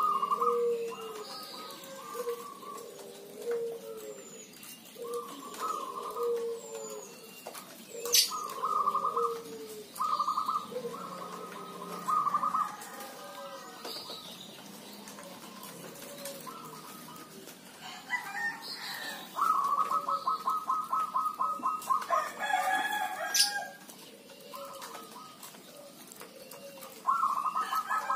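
Zebra doves cooing: strings of rapid, bubbling coos from more than one bird, overlapping and answering one another. About two-thirds of the way through, a louder spell includes a rooster crowing.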